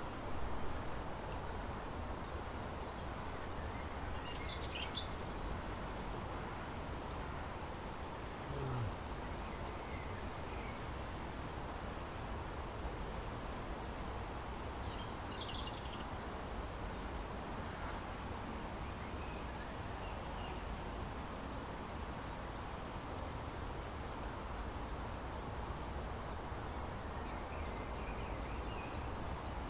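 Steady outdoor background noise at a lakeside, with a few faint, short bird calls, one about 5 seconds in, another about halfway and a last one near the end.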